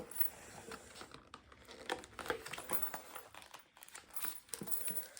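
Packaging crinkling and rustling in short, irregular bursts as it is handled during unboxing.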